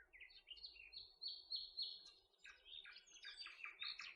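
A small songbird singing faintly: a series of short, high, downward-sliding chirps, then a quicker run of short notes just past the middle.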